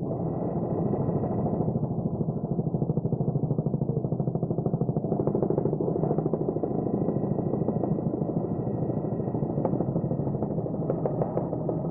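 Helicopter running, heard from aboard: a fast, even beating of the rotor with a steady high whine over it. A few sharp clicks come near the end.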